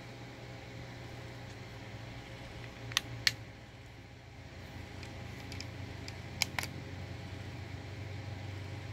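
Two pairs of sharp clicks, one about three seconds in and one about six and a half seconds in, over a steady low hum.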